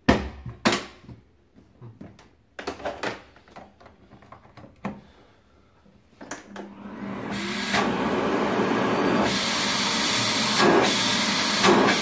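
Plastic clicks and knocks as parts of a Philips Marathon Ultimate FC9924 bagless vacuum cleaner are fitted together. About six seconds in, the vacuum is switched on for a test run: its motor spins up over a second or so, then runs steadily, growing brighter and hissier about three seconds later.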